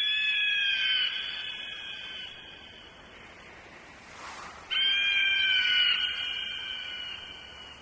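Eagle cry sound effect: two long, high screams, each starting sharply, falling slightly in pitch and fading away, the second coming almost five seconds in.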